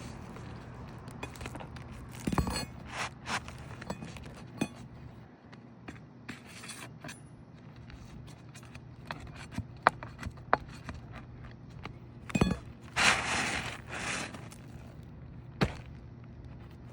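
Asphalt roof shingles being pried loose and handled: scattered sharp clicks and knocks, with a longer scraping rustle about 13 seconds in.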